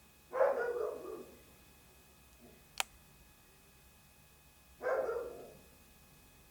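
A dog barking twice, about four seconds apart, each bark trailing off over about a second. A single sharp click falls between the two barks.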